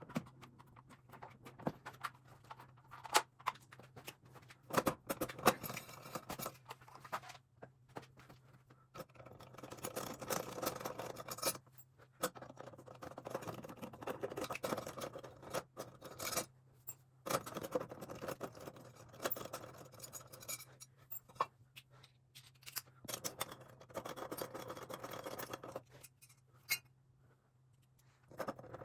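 A Zephyr ceiling fan being taken apart and taken down by hand: scattered clicks and knocks of parts and tools, with several stretches of scraping and rubbing a second or two long. A faint low steady hum runs underneath.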